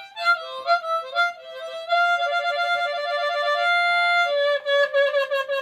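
Harmonica playing an instrumental break: a run of short notes, then long held notes with several sounding together.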